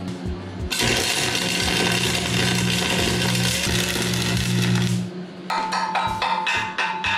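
Arc welder crackling and hissing steadily for about four seconds while running a bead on steel, then it stops and a chipping hammer taps rapidly on the fresh weld, about five sharp ringing strikes a second, knocking off slag.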